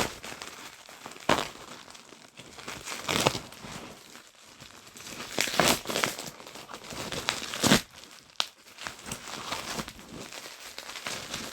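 Plastic wrapping crinkling and tearing as it is pulled off a package by hand: irregular rustling with several louder bursts.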